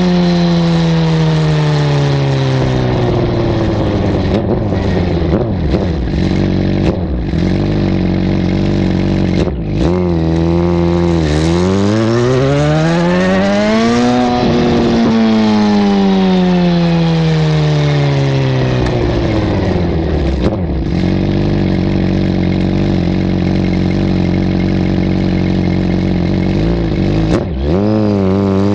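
2009 Suzuki GSX-R1000's inline-four engine through a Two Brothers M2 exhaust, heard close to the muffler while riding. The exhaust note falls as the bike slows, holds steady, rises through a pull about ten seconds in and falls away again, then holds steady with a short dip and rise near the end.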